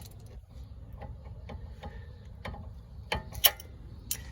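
Irregular metallic clicks from a ratchet wrench tightening a front brake caliper bolt, with two louder clinks about three seconds in.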